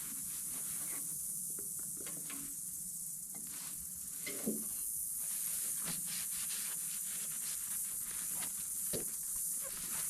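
Aerosol spray paint can hissing steadily while paint is sprayed, with scattered light clicks and knocks.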